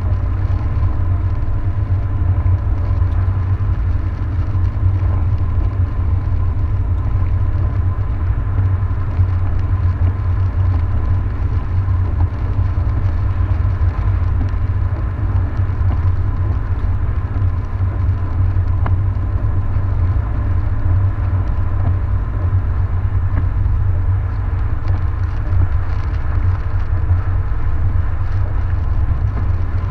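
Steady low rumble of a car's engine and tyres, heard from inside the moving car's cabin.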